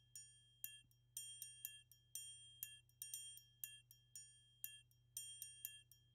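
Faint background music of high, bell-like chiming notes, a few a second, each ringing briefly and fading.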